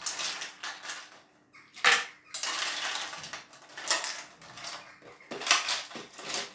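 Ice cubes spooned out of a bowl and dropped into a blender jug of chopped fruit: a metal spoon scraping and clinking against the bowl, and cubes rattling down. There is a single sharp clink about two seconds in.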